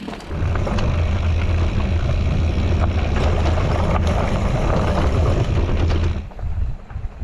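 Mountain bike rolling fast over rough trail: a loud steady rumble with scattered clicks and rattles that sets in just after the start and drops away suddenly about six seconds in.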